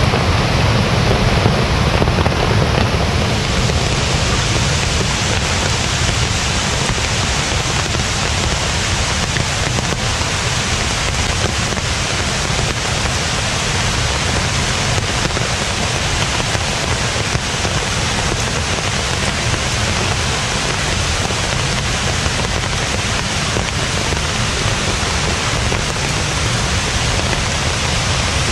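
Loud, steady rushing of water, an unbroken roar with no let-up, typical of a typhoon-swollen mountain stream and heavy rain.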